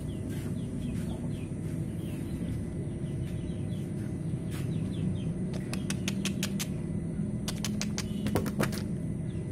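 Outdoor ambience: small birds chirping over a steady low rumble, with two quick runs of sharp chirps in the second half.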